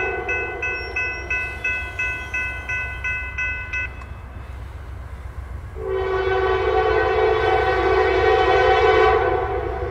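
Railroad grade-crossing bell ringing about three strokes a second while the gate arm lowers, stopping about four seconds in once the gate is down. About two seconds later the approaching CSX freight's locomotive horn sounds one long blast of about four seconds.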